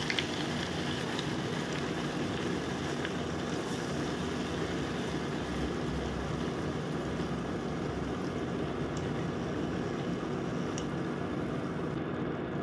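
Onion paste frying in hot mustard oil in a nonstick pan, a steady sizzle while it is stirred, with a few faint spatula taps on the pan.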